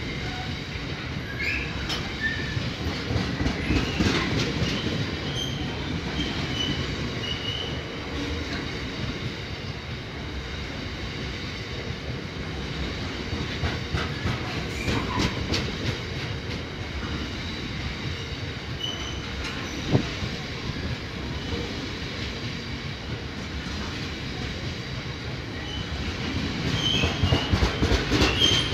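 Loaded bogie oil tank wagons of a freight train rolling past at close range, wheels clattering over the rail joints in a steady rumble. Short high wheel squeals come now and then, and the train gets louder near the end.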